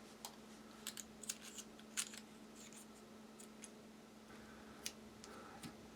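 Small steel parts of vintage Bernard parallel pliers clicking and tapping against each other as a jaw is fitted back in by hand: a scatter of light clicks, busiest in the first two seconds, the loudest about two seconds in. A faint steady hum lies underneath.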